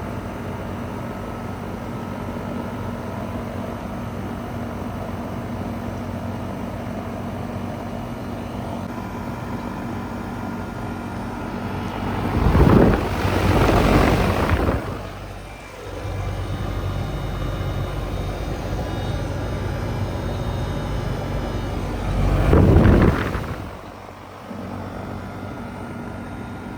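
Goodman CPLE30 heat pump outdoor unit running in cool mode: the Copeland reciprocating compressor hums steadily under the condenser fan's airflow. Twice, once near the middle and once near the end, a loud whooshing swell rises and falls over a couple of seconds.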